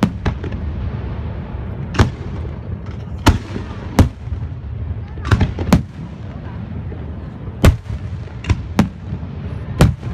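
Fireworks shells bursting: about ten sharp bangs at uneven intervals, some in quick pairs, over a steady low rumble.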